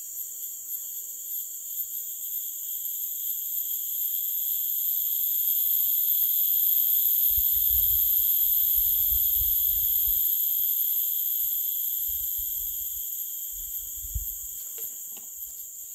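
Insect chorus: a steady, shrill high drone at several pitches that swells louder toward the middle and eases off again. Low rumbles come and go through the middle and later part.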